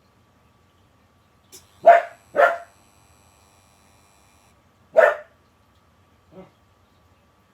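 A dog barking: two quick barks about two seconds in, then a single bark about five seconds in.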